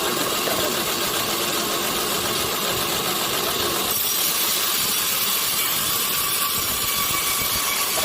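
Sawmill machinery engine running steadily, a dense fast-pulsing mechanical sound that shifts slightly about halfway through.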